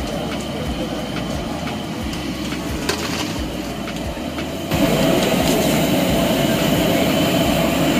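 Hot oil sizzling steadily in a large kadai as a batch of medu vadas deep-fries. It steps up in loudness about five seconds in.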